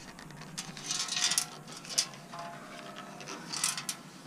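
Intermittent rubbing and scraping as a motorcycle exhaust muffler is handled and turned over, with a sharp metallic tick about two seconds in.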